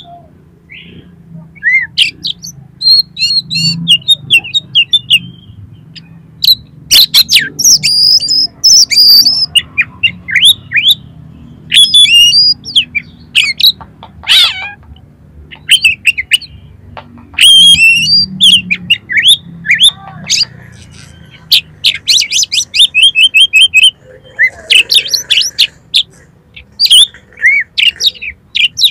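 Oriental magpie-robin (kacer) singing loudly in short bursts of varied sharp whistles and harsh, scratchy phrases. About two-thirds of the way through comes a fast run of evenly repeated notes.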